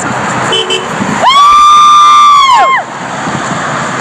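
Vehicle horn honking from passing traffic: two very short beeps about half a second in, then one loud blast of about a second and a half whose pitch drops as it ends, over steady road traffic.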